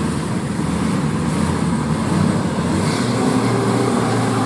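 Diesel engine of a heavily loaded 12-wheel Tata truck running at low speed as it crawls over a rutted dirt road, a steady low drone that grows a little stronger in the second half.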